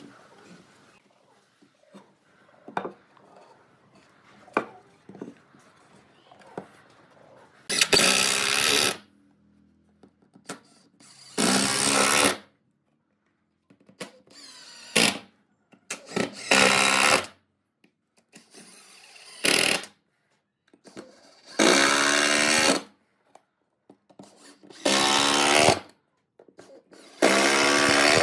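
A power tool switched on and off in short bursts, eight times in the second part, each lasting from half a second to about a second and a half. Light knocks and handling clicks come first and fall between the bursts.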